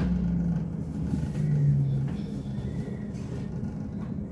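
Elizabeth Line Class 345 electric train pulling away from a station, heard from inside the carriage: a steady low rumble with a low electric hum from the traction motors that shifts in pitch, loudest about a second and a half in.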